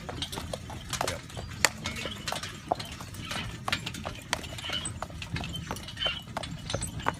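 A carriage horse's hooves clip-clopping on a packed dirt track as it pulls the carriage, a string of sharp, uneven hoof strikes over a steady low rumble.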